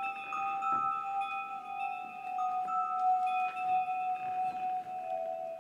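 Music of long held tones: a steady lower tone with higher tones above it that step in pitch every second or so.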